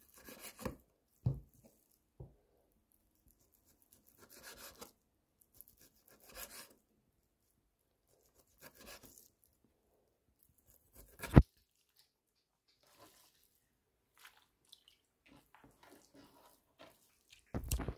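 Large kitchen knife slicing raw beef into thin strips on a wooden cutting board: short, soft scraping strokes of the blade through the meat with pauses between, and one sharp knock of the blade on the board a little past the middle.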